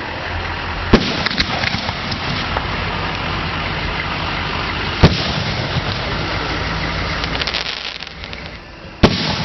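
Fireworks exploding: three sharp booms about four seconds apart, with bursts of crackling in between, over a steady background din.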